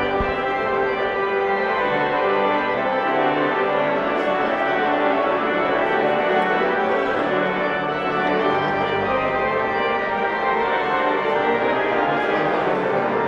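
Organ music playing steadily, a continuous flow of held chords.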